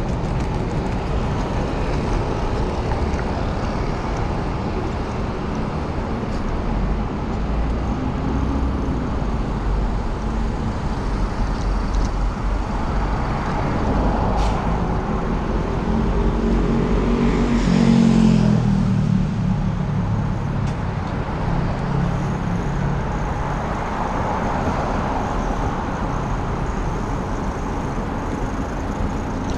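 City road traffic as a steady low rumble. About two-thirds of the way through, one vehicle's engine passes close, louder for a few seconds, its pitch falling as it goes by.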